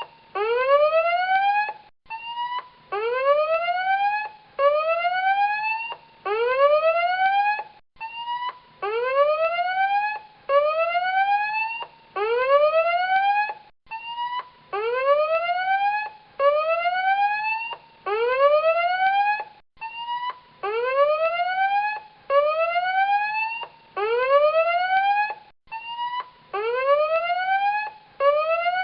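Tsunami warning alarm: a whooping siren whose pitch sweeps upward about once a second, each whoop levelling off at the top, with a brief break every six seconds or so.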